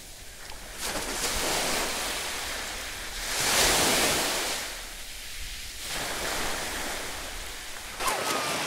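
Sea surf washing on a beach, the noise swelling and fading in slow surges, with splashing as a swimmer wades out through the shallows.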